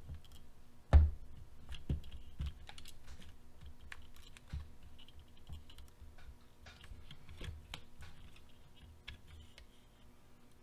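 Plastic parts of an RC truck's front suspension and steering assembly being handled while a small screw is fitted into the steering block: irregular light clicks and taps, with a louder knock about a second in.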